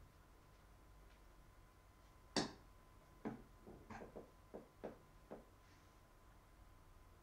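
A sharp knock about two and a half seconds in, then a quick run of about seven short clicks and creaks over the next three seconds as a person sits down and settles into an office chair. A faint steady tone runs underneath.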